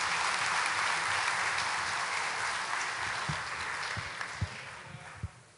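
Audience applauding, the clapping dying away toward the end.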